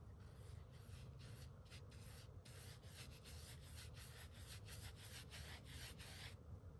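Faint, rapid strokes of a paintbrush scrubbing latex paint into the end grain of a cedar log, roughly two strokes a second, stopping shortly before the end.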